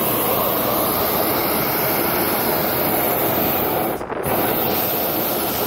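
Hot-air balloon's propane burner firing, loud and steady, cutting out for a moment about four seconds in and then firing again.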